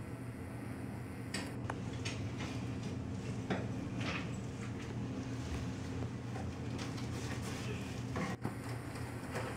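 Scattered soft rustles and taps as a toddler rummages in a cardboard box of fruit snack pouches, over a steady low hum.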